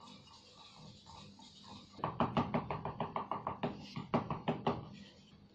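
A rapid series of sharp knocks or clicks, about six a second, starting about two seconds in and lasting nearly three seconds.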